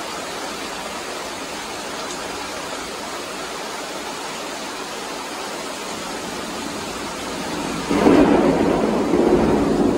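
Heavy monsoon rain falling steadily. About eight seconds in, a loud thunderclap breaks in and rumbles on to the end.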